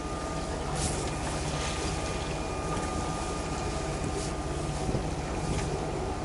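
Sailing yacht's engine running steadily under way, a constant hum with a few steady tones over wind and water noise.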